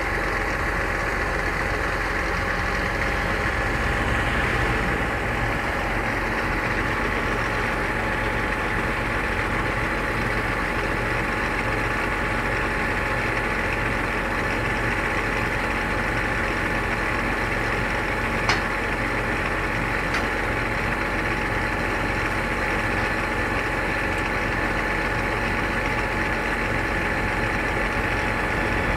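Tractor engine running steadily at idle while its hydraulics fold up the wings of a Lemken Gigant 1000 cultivator, with a steady whine over the engine hum. A single sharp click comes about two-thirds of the way in, and a fainter one shortly after.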